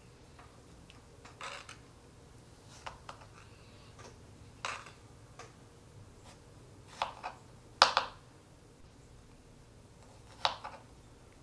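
Kitchen utensils and dishes being handled during food preparation: a handful of scattered light clicks and knocks at irregular intervals, the loudest about eight seconds in.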